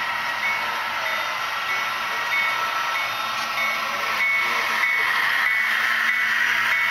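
HO scale model freight train running on layout track, its running noise getting louder about four seconds in as the locomotives come close. A high two-note beep repeats about twice a second throughout.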